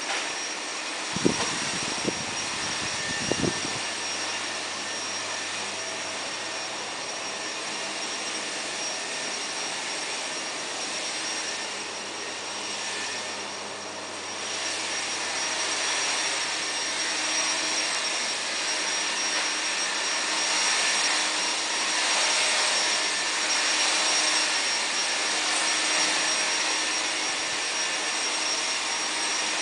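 Steady whooshing air noise with a faint high-pitched whine, a little louder in the second half. Three sharp knocks come between about one and four seconds in.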